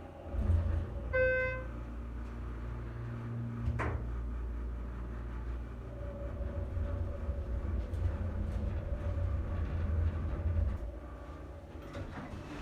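Schindler elevator car travelling between floors: a steady low rumble of the car in motion that eases off near the end as it stops. A short beep sounds about a second in, and there is a sharp clunk just before four seconds.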